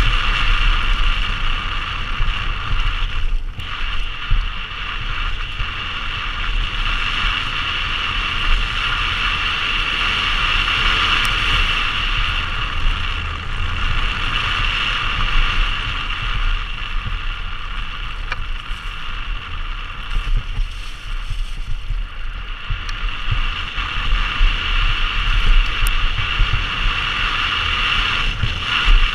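Wind rushing loudly over a helmet-mounted action camera, with the low rumble of a mountain bike's knobbly tyres rolling fast over grass and dirt trail.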